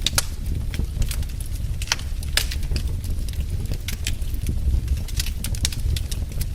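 Wood fire burning in a fireplace: a low steady rumble of flames with irregular sharp crackles and pops from the burning logs.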